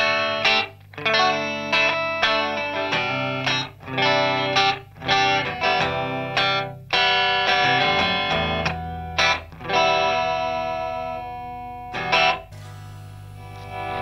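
Electric guitar played in picked notes and chords through a PT2399 delay pedal (Madbean Dirtbaby) set to slap delay. Near the end the playing cuts to a quieter, softer held sound.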